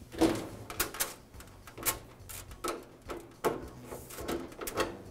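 A string of light, short knocks and clicks as a gas grill's sheet-metal cabinet door is lifted off its hinge and set aside.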